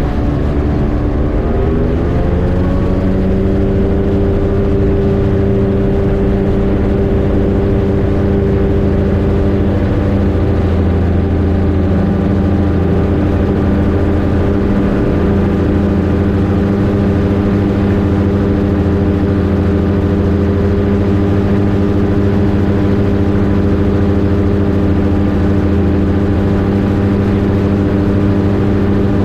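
Rotax 582 two-stroke engine of an X'Air microlight going to full power for takeoff: the engine note rises over the first two or three seconds, then holds steady and loud.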